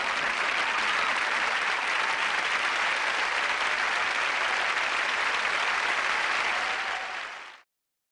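Studio audience applauding steadily, then fading away and cutting off to silence near the end.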